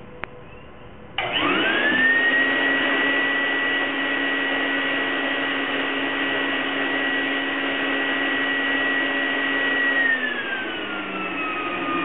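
An electric motor with a rush of air, like a vacuum-cleaner motor, switches on suddenly about a second in. Its whine rises quickly to a steady high pitch, holds, then drops to a lower pitch near the end as the motor slows.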